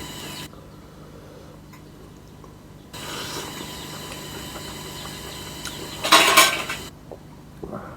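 Eating sounds close to the microphone: quiet clinks of a plate and cutlery, with one short, loud burst of noise about six seconds in and a smaller one near the end.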